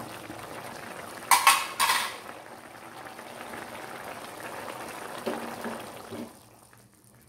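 Spinach and chayote soup bubbling at a boil in a steel pot. About a second and a half in come two loud metal clinks against the pot, with softer knocks a little after 5 seconds. The bubbling fades away near the end.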